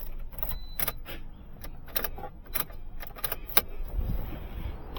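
A bunch of keys jangling: a string of light metallic clinks, irregularly spaced, that stop after about three and a half seconds.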